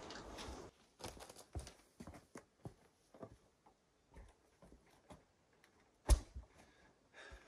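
Scattered light knocks and steps as chunks of wood are handled and laid into a log-walled raised garden bed, with one heavy thump about six seconds in as a piece is dropped in.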